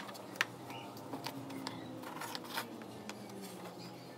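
Light clicks and taps of small dry twigs and a plastic glue bottle handled on a wooden work table. The sharpest click comes right at the start, a second about half a second in, then a few softer ticks, over a faint steady hum.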